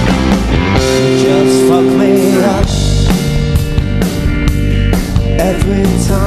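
A rock band playing a song, with electric guitar and drum kit, and a held note about a second in.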